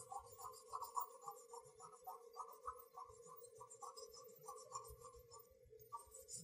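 Pencil on paper: quick back-and-forth hatching strokes, about three a second, faint and scratchy, pausing briefly near the end.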